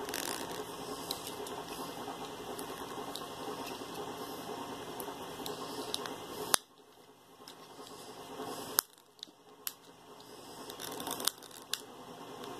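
Several sharp plastic clicks and snaps as fingers pry at a wireless mouse's battery cover, the loudest about six and a half seconds in, over a faint background hiss.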